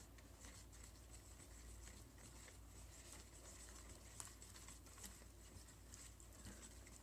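Balloon whisk beating a thin liquid batter of milk, egg, sugar and oil in a plastic bowl: faint, rapid ticking and scraping of the wires against the bowl, with a slightly louder tap about four seconds in.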